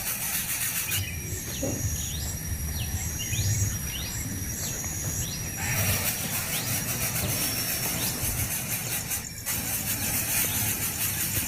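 A small bird gives a run of short, high chirps, roughly two a second, for about four seconds, over a steady low outdoor rumble. After that only the rumble and a faint, thin high tone remain.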